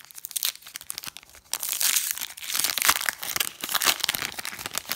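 Foil wrapper of a Pokémon trading card booster pack crinkling as it is torn open by hand and the cards pulled out, with a dense crackle through the middle seconds.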